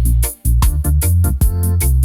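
Roots reggae music without vocals: a deep, sustained bass line under a drum kit keeping regular hi-hat strokes, with held keyboard chords.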